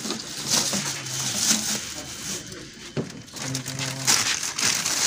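Plastic drink bottles and a plastic carrier bag crinkling and rustling in uneven bursts as they are handled, with a sharp click about three seconds in.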